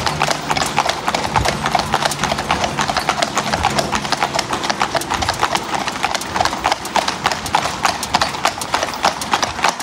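Hooves of a cob horse pulling a two-wheeled cart clip-clopping on a tarmac road in a quick, even rhythm.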